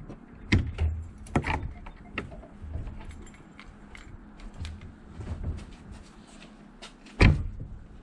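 Clicks, rattles and knocks from the tractor cab as the operator climbs out, with one loud thump about seven seconds in.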